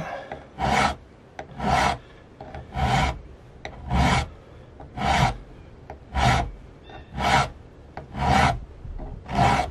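Hand file rasping across a flintlock rifle's front sight, nine evenly spaced strokes about a second apart. The sight is being filed lower to raise the rifle's point of impact, since it is shooting low.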